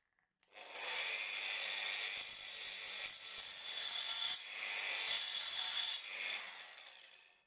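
Angle grinder fitted with a thin toothed wood-cutting saw disc, started up about half a second in and run against a wooden block, with two brief dips in the sound, then winding down near the end.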